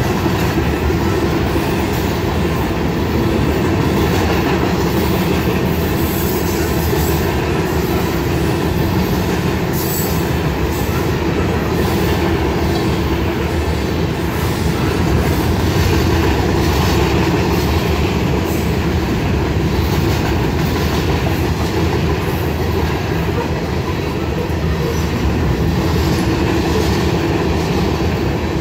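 Covered hopper cars of a freight grain train rolling past, their steel wheels running steadily and loudly on the rails.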